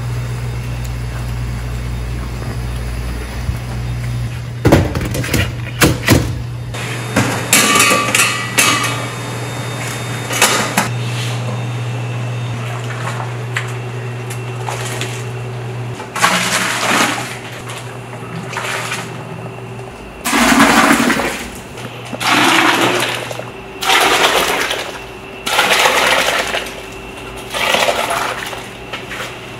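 Soup broth being scooped with a plastic scoop and poured from one large pot into another, a splashing pour about every two seconds through the second half, after some knocks and splashes early on. A steady low hum runs under the first half.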